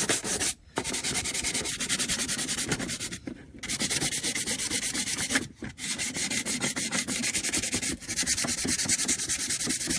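150-grit sandpaper scraping back and forth in quick, even strokes over the welded spots of a hood-vent backing plate, with a few short pauses. This is the surface being flattened and roughened so the adhesive will bond.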